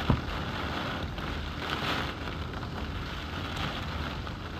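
Heavy hurricane rain with gusting wind: a steady hiss that swells about two seconds in. There is a single sharp knock right at the start.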